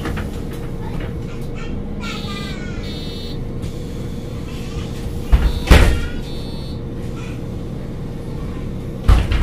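MAN NG 273 T4 articulated bus's LPG engine idling with a steady hum. Two short high beeps come a couple of seconds in. A loud thump with a burst of noise comes about halfway through, and another near the end.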